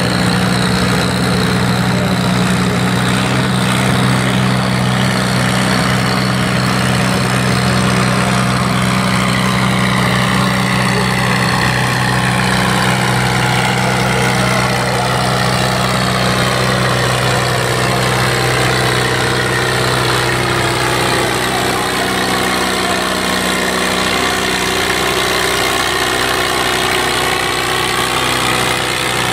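Farm tractor engine running steadily at a tractor pull. Its pitch slowly sags and then climbs back in the second half.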